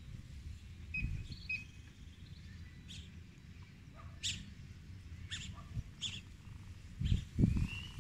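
Birds chirping in the background: scattered short, high calls and a brief rising whistle near the end. Low rumbles come about a second in and again, loudest, near the end.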